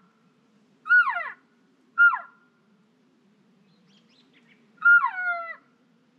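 Hand-held elk call blown by the hunter: three short cow-style calls, each sliding down in pitch, the third longer and in two parts.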